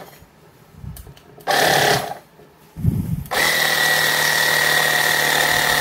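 Portable cordless tire inflator's compressor running in two short half-second bursts, then starting about three seconds in and running steadily with a high steady tone as it pumps air into a ball.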